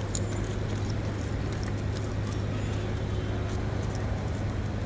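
A steady low hum under faint background noise with scattered small ticks.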